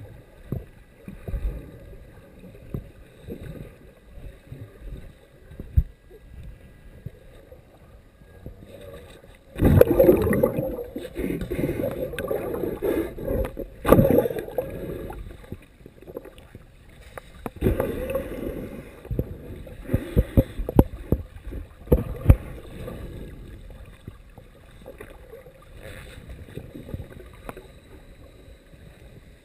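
Churning water heard underwater, with low rumbling and scattered knocks. It grows much louder for about six seconds from around ten seconds in, and again for several seconds from about eighteen seconds.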